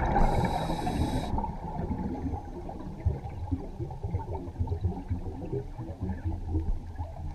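Underwater sound of a scuba diver exhaling through the regulator: a rush of gurgling bubbles for about the first second, then a low muffled underwater rumble with faint crackling.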